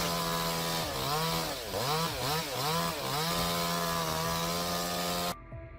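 Gasoline chainsaw running at high revs. Its pitch dips and recovers several times as the chain bogs down in the wood, then it runs steady again and cuts off suddenly near the end.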